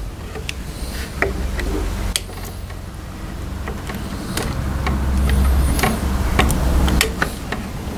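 Stanley utility knife cutting and scraping at hardened bonding compound on a composite crashbox: a run of sharp, irregular clicks and scrapes. A low rumble underneath grows louder about five seconds in.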